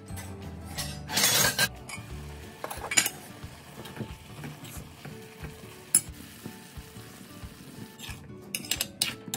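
Vegetable stew simmering in a nonstick pan while a ladle stirs through it, with a brief louder clatter about a second in and sharp clinks of the ladle against the pan, several of them near the end.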